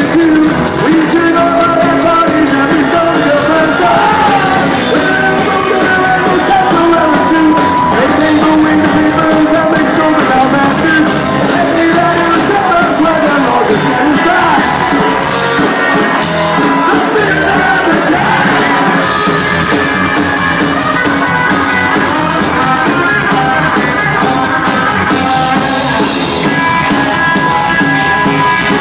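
Live psychobilly band playing loud, with electric guitar, upright bass and drums.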